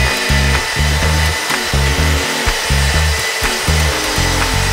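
Background music with a pulsing bass line over a Mafell MT 55 plunge-cut saw running along its guide rail, cutting through a honeycomb panel faced with chipboard.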